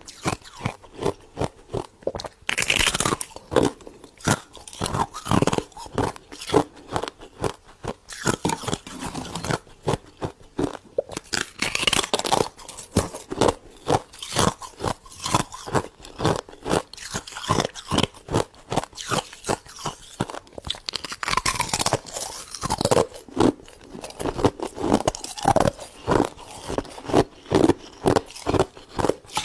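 A person chewing a mouthful of freezer frost: steady, crisp crunching at about two to three crunches a second, with a few longer, louder crackly bites along the way.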